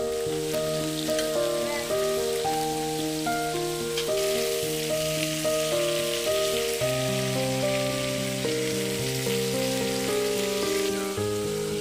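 Steady rain hiss under background music: a slow melody of held notes over a bass line.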